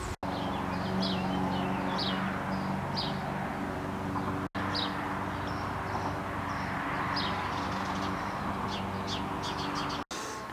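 Small birds chirping, many short high calls scattered throughout, over a steady low mechanical hum. The sound cuts out for an instant three times.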